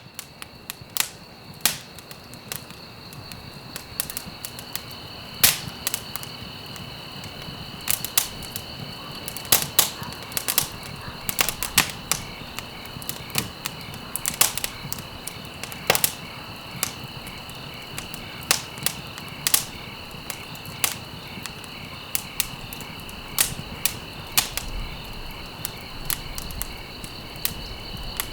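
Wood fire crackling, with sharp pops at irregular intervals, several a second at times, over a steady background of crickets chirping.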